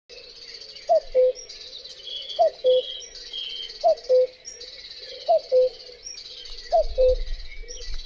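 Common cuckoo calling its two-note 'cu-coo', the second note lower than the first, five times about a second and a half apart. Behind it runs a steady high chirping, and a low rumble comes in near the end.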